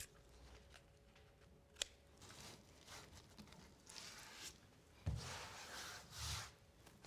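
Faint handling of wallpaper scissors cutting into the ceiling corner, with a sharp snip about two seconds in, then short stretches of paper being rubbed and wiped with a sponge in the second half.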